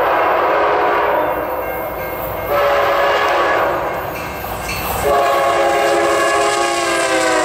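A train horn sounding long, loud blasts, several notes held together as a chord, swelling anew about two and a half and five seconds in.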